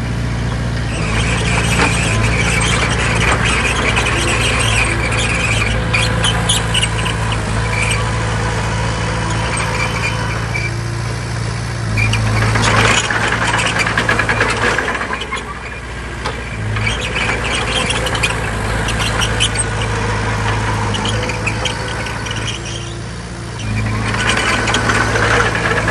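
Bulldozer's diesel engine running steadily under load, with high metallic squealing and clanking from its steel crawler tracks; the engine note drops back briefly near the middle and again near the end.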